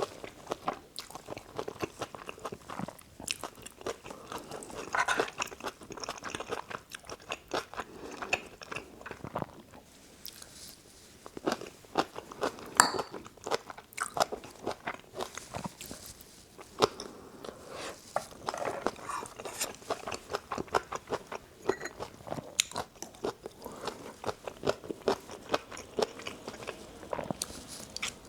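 Close-miked eating sounds: a person chewing and biting into spicy Korean dakgalbi (stir-fried chicken) with rice, heard as a steady run of irregular short, sharp clicks.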